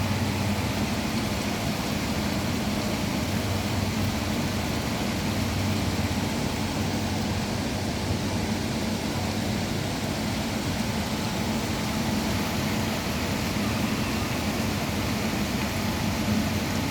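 Heavy rain falling steadily, an even dense hiss, with a low steady hum underneath.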